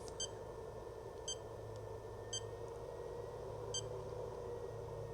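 Four short, high electronic beeps from the Junsi iCharger X8 hobby battery charger as its buttons are pressed to set up a charge, spaced about a second apart, over a faint steady hum.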